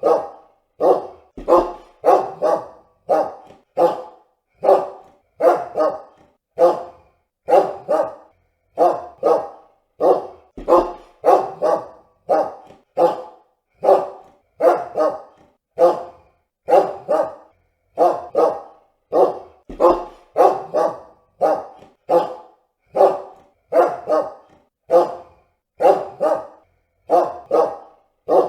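A dog barking over and over in a steady series of short barks, about one to two a second, some coming in quick pairs.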